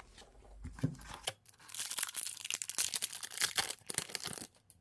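A trading-card pack wrapper being torn open and crinkled: a few soft clicks, then a dense crackling tear of the wrapper through most of the second half.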